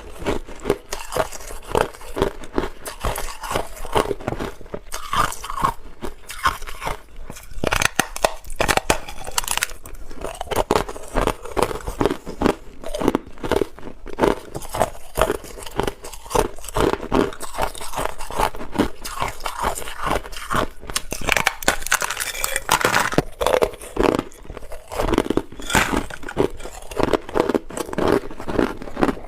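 Hard clear ice being bitten and chewed, a steady run of loud crunching and cracking close to the microphone.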